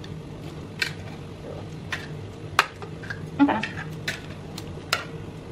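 Chopped fish head pieces being tipped from a plastic plate into a wok of boiling water: a string of sharp clicks and taps as the plate and pieces knock against the aluminium pot, over a steady low hum.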